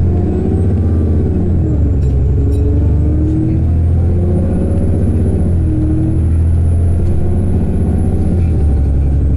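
Cummins ISB 6.7 diesel engine of an Alexander Dennis Enviro400 double-decker bus heard on board, pulling hard with its ZF Ecolife six-speed automatic in power mode. The engine note climbs and drops back several times as the gearbox changes up. A faint high whine rises and falls over the last few seconds.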